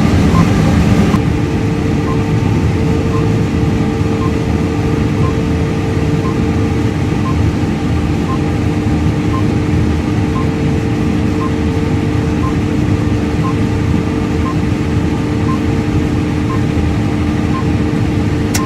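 John Deere CS690 cotton stripper running steadily while wrapping a round module, a constant drone with a steady hum. A faint pip repeats about once a second, and a short click comes near the end.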